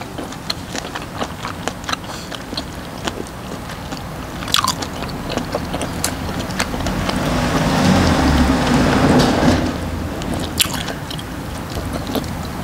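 Close-up chewing of chewy baby octopus in chili sauce: repeated wet mouth clicks and smacks. In the middle a broad rushing noise swells and fades over about three seconds.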